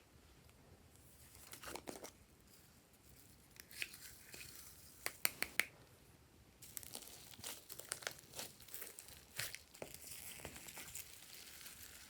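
Hands working glossy slime, stretching and pressing it: sticky crackling with sharp clicks and pops, a quick cluster of loud snaps about five seconds in and busier crackling in the second half.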